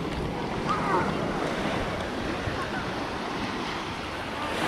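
Surf washing onto the beach, with wind rumbling on the microphone.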